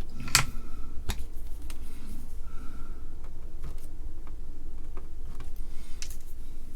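A few sharp snips and clicks of flush cutters trimming component leads on a circuit board: a loud one just after the start, another about a second in and one near the end, over a steady low hum.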